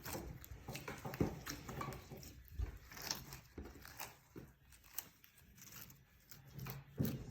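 Slime being squished and worked by hand, giving irregular soft squelches and small pops.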